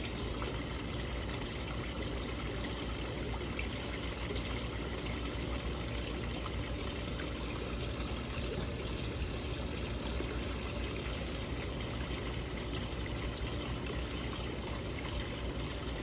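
Steady running, trickling water, with no change in level.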